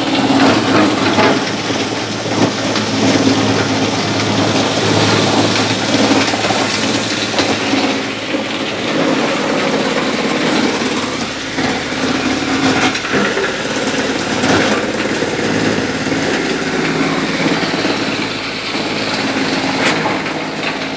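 Wood crusher running steadily, grinding wood into sawdust, with a constant low engine-like hum under the dense mechanical noise.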